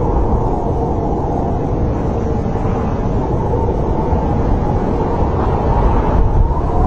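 Snowstorm wind blowing steadily: a deep rumbling rush with a faint wavering howl.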